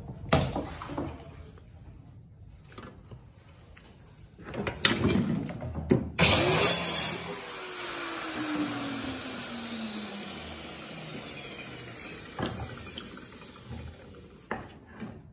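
A few knocks early on, then a handheld electric power tool is switched on about six seconds in, runs briefly, and spins down, its whine falling steadily in pitch as it fades over several seconds.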